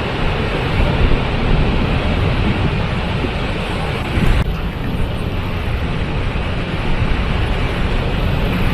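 Waterfall: a steady, loud rush of falling water, its hiss dropping a little about four seconds in.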